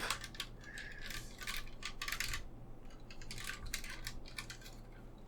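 Light clicks and rattles of a 1:18 diecast model car being handled, in two short clusters, over a faint steady hum.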